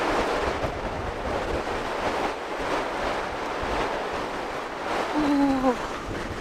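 Rough Atlantic surf breaking steadily, mixed with strong wind buffeting the microphone. A woman's short vocal sound comes in about five seconds in.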